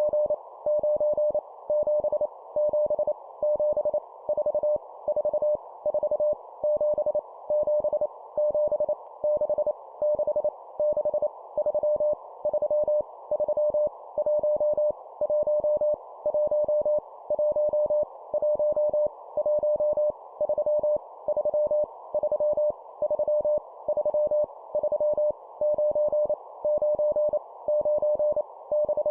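Morse code at 25 words per minute: a single steady tone keyed on and off in quick dots and dashes, sending random numbers, each repeated three times. Under the keyed tone runs a constant hiss.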